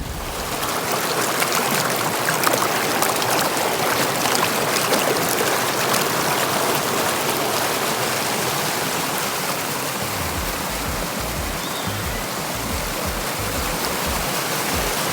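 River water rushing, a steady even noise that starts abruptly and runs without a break.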